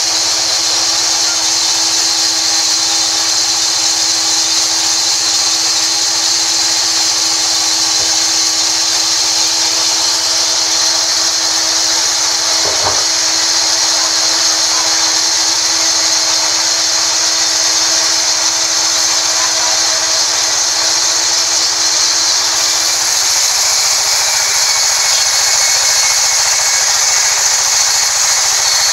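Large vertical band saw running steadily: a continuous high hiss over a steady hum. About three quarters of the way through the sound shifts, the hum fading and the hiss brightening, as the mahogany log is pushed up to the blade.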